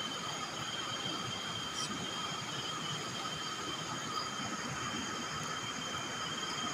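Chorus of night insects in tropical forest, several steady high-pitched trills at different pitches held without a break over a constant low background noise.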